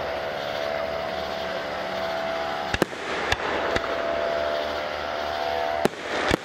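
Aerial fireworks shells bursting with sharp bangs: a close pair about three seconds in, two more over the next second, and two near the end. A steady hum runs beneath between the bangs.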